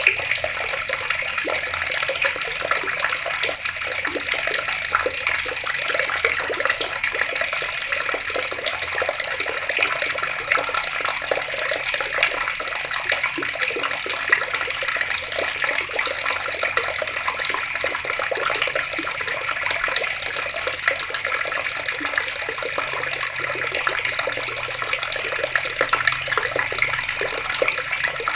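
Water running steadily from an open tap, an unbroken hissing stream.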